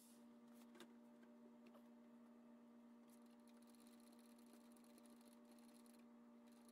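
Near silence: a faint steady electrical hum, with a few faint ticks about a second in and light hiss in the middle as a cloth is wiped over the panel.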